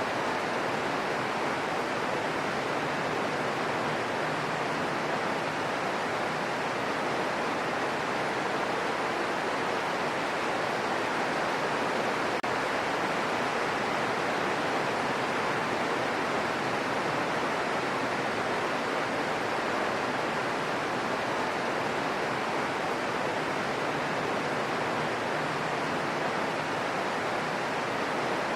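Steady, gentle rain falling in a forest: an even, unbroken hiss with no single drops or other sounds standing out.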